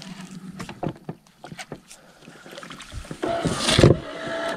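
Knocks and handling noise from a bow-mounted Minn Kota electric trolling motor being handled on a boat deck, then a louder whirring about three seconds in that lasts over a second.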